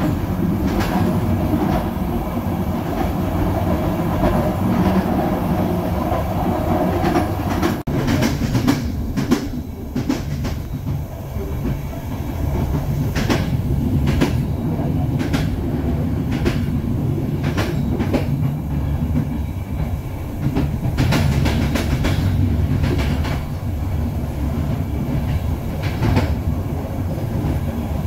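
Passenger train running, heard from on board: a steady rumble of the coach on the track, with the clickety-clack of wheels over rail joints. The sound changes abruptly about eight seconds in, after which the clicks come through sharply every second or so.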